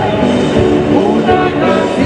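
A hymn sung by a group of people with guitar accompaniment.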